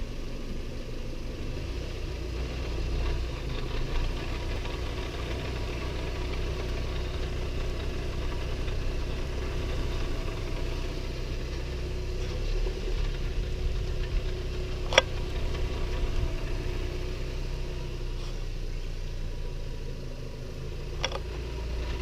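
2015 Audi A3 1.8T's turbocharged four-cylinder engine running as the car creeps uphill in Drive, with a low grinding from the front of the car. There is a steady hum under the engine sound, and two sharp clicks about 15 and 21 seconds in.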